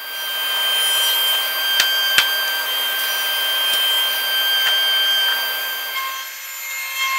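Felder sliding table saw cutting a block of oak: the blade gives a steady high whine over dense sawing noise, with two sharp clicks about two seconds in. The sound changes near the end.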